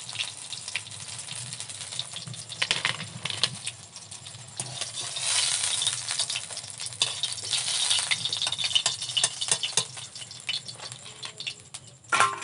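Metal kitchen utensils clattering and rattling in quick irregular knocks, with two stretches of sizzling hiss from hot frying oil midway, and a sharp ringing clank near the end.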